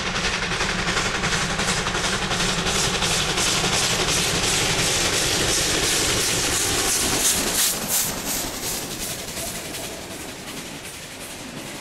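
Victorian Railways R class 4-6-4 steam locomotive R711 working hard under load, its exhaust beating rapidly with a hiss of steam as it accelerates past. About eight seconds in the engine is past and the carriages roll by with a clickety-clack, the sound fading away.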